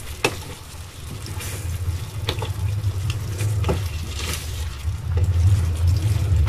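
Scialatielli and sauce cooking in a pan while being stirred with a spoon, over a low steady rumble. There are a few light clicks of the spoon against the pan.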